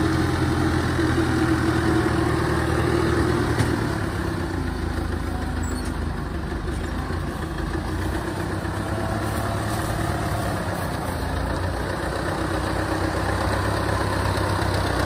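Engine of a tracked rice-hauling carrier running steadily as it crawls through boggy mud under a full load of rice sacks; its note changes about four seconds in.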